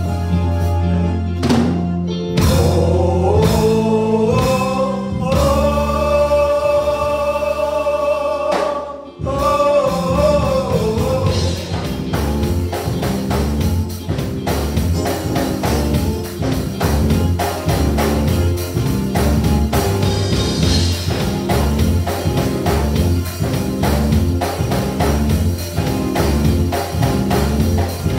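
Gospel song sung by a small group of singers over accompaniment with drums and bass. A long held note with vibrato breaks off about nine seconds in, and from then on a steady beat runs under the voices.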